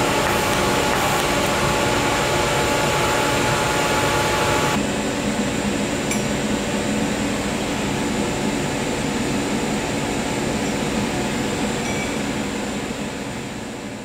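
TIG welding arc on stainless steel, a steady loud hiss with a faint buzz. About five seconds in it cuts abruptly to a duller, steady machine hum.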